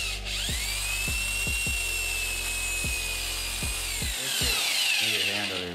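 Corded electric drill motor whining as it slowly core-drills out the stripped head-stud threads in a Subaru EJ257 aluminium engine block for a Time-Sert insert. It spins up right at the start, runs at a steady pitch, then winds down with a falling whine about four seconds in. Background music with a steady beat plays underneath.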